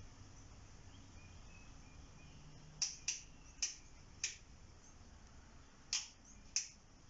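Six sharp, short clicks: four in about a second and a half, then two more about two seconds later, over a faint low hum.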